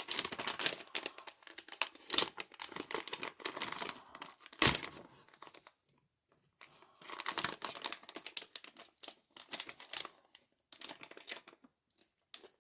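Packaging being opened by hand: irregular crinkling and tearing as the tools are unwrapped, with one sharp knock about four and a half seconds in and a brief pause about six seconds in, then more crinkling and a few light clicks near the end.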